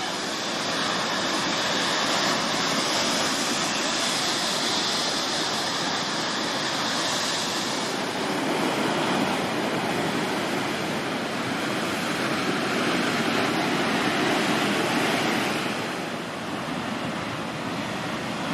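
Storm surf breaking on a rocky shore: a continuous rush of water that swells and eases over several seconds, dipping briefly near the end.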